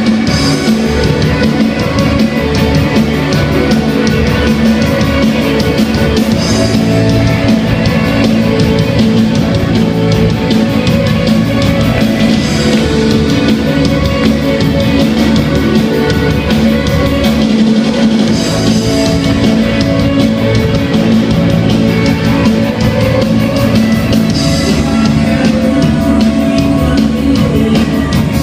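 Rock band playing with electric guitar and drum kit, loud and continuous, with a cymbal-like accent about every six seconds.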